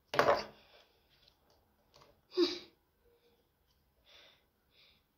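Short breathy vocal sounds from a person close to the microphone: a loud huff right at the start, a short voiced syllable about two and a half seconds in, and faint whispered hisses near the end.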